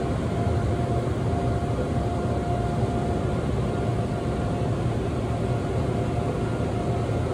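Seoul Subway Line 2 train running at speed through a tunnel: a steady low rumble of wheels on rails with a thin, steady high tone over it.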